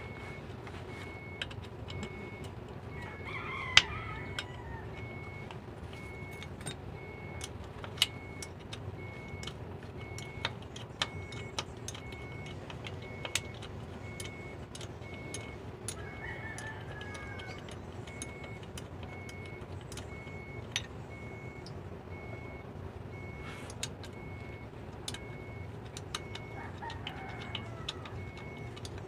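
Wrench clinking and ticking against the metal fittings of a truck's clutch slave cylinder, in scattered sharp clicks. A rooster crows three times in the background.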